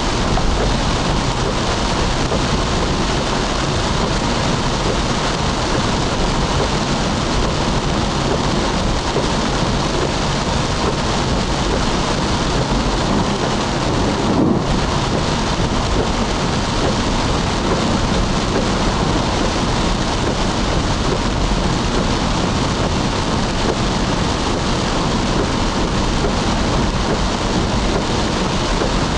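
Heavy rain pelting a moving car's windshield and roof, mixed with tyre hiss on the wet road, heard from inside the cabin as a steady, loud wash of noise.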